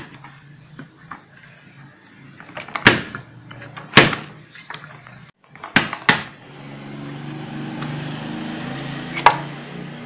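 Sharp hard-plastic knocks and clacks as a pedestal fan's plastic blade is worked off its motor shaft and lifted out past the wire grille, five or so separate knocks. A low steady hum comes up in the second half.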